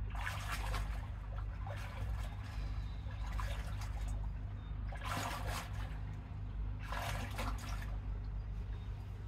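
Lake water splashing and trickling in about five short bursts as a person at a boat's swim ladder moves in the water, over a steady low rumble.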